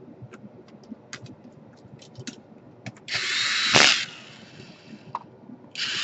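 Small electric screwdriver driving screws into a laptop's plastic bottom case, in two short runs of about a second each, the second starting near the end. Light clicks of screws and parts being handled come before them.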